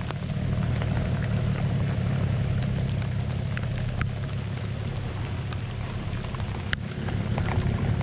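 Rain on the river, with a few sharp ticks of single drops, over a steady low rumble.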